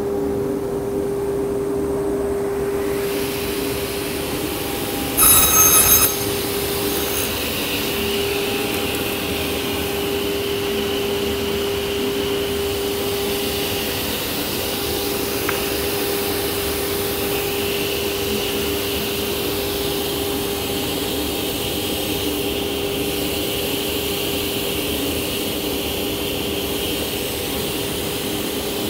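Martin T60C sliding table saw's motor and blade running steadily with an even hum. About five seconds in, a loud, high-pitched tone sounds for about a second.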